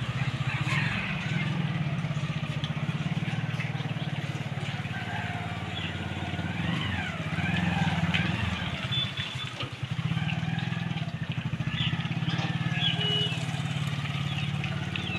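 Small commuter motorcycle engine running steadily at low speed while towing a two-wheeled cart, its note dipping briefly about two thirds of the way through.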